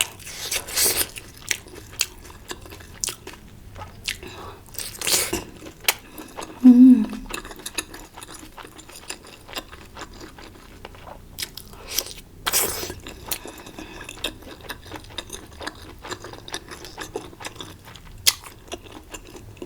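Close-miked chewing and biting of spicy malatang hotpot food, with a run of wet clicks and crunches and a few longer noisy mouth sounds. There is a brief low hum about seven seconds in.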